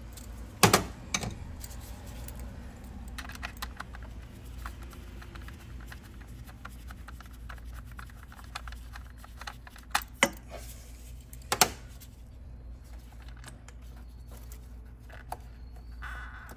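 Hand work on a car engine: sharp plastic-and-metal clicks and knocks as tools and engine parts are handled at the number 6 spark plug, with a quick run of light ticks a few seconds in and a few louder knocks later.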